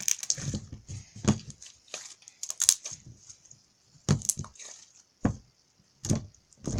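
Bubble pop slime being squeezed and pressed by hand, its trapped air bubbles popping in irregular sharp pops and crackles.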